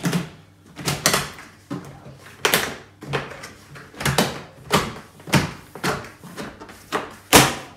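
Plastic lid of a fermenter bucket being pressed down around the rim, giving a series of sharp plastic snaps and knocks about once a second. The loudest snap, near the end, is the click that shows the lid has sealed.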